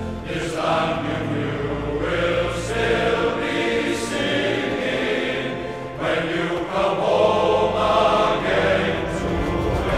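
Background music of a choir singing, with sustained vocal chords.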